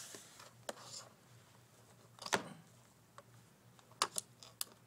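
Latch clip being pushed and snapped down into its railing: a few sharp clicks, the loudest about two seconds in, then a quick run of three or four clicks near the end.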